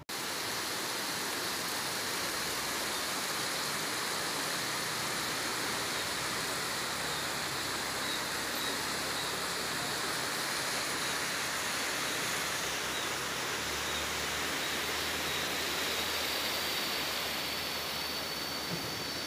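Steady rushing noise of flowing water, even and unbroken, with a faint high steady tone joining near the end.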